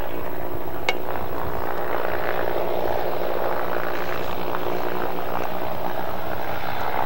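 Steady drone of the Goodyear blimp's twin propeller engines flying low overhead, mixed with a rushing noise.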